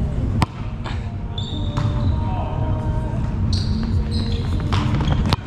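Two sharp smacks of a volleyball about five seconds apart, with brief high sneaker squeaks on a gym floor in between.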